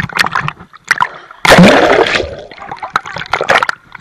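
Pool water splashing and bubbling around a camera in a waterproof case as it dips under the surface, muffled through the case. Crackly splashes run throughout, with a loud rush of water about one and a half seconds in.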